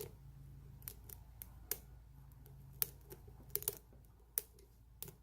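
Faint, irregular metal clicks and ticks from a lock pick and tension wrench working the pin stack of a challenge lock during single-pin picking.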